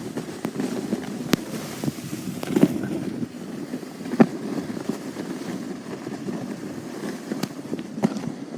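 Wind rumbling against the microphone, with scattered sharp knocks and crunches, a few of them louder.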